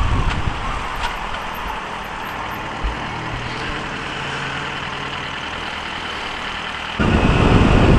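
Yamaha FZ6S's inline-four engine idling with traffic around it, a faint steady low hum. About a second before the end the sound jumps suddenly louder with wind rush as the bike moves off.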